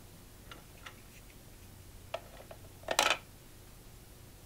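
Plastic toy shape sorter being handled: a few light plastic clicks and taps, then one louder short plastic clatter about three seconds in.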